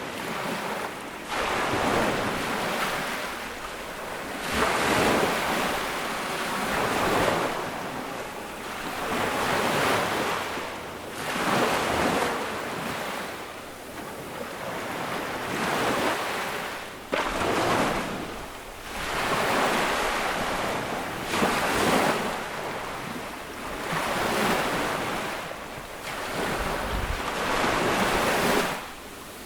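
Ocean waves breaking on a beach, a noisy rush that swells and fades every few seconds.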